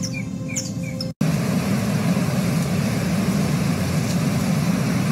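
Birds chirping in quick repeated notes for about a second, then an abrupt cut to a steady, loud rushing of floodwater through a flooded street.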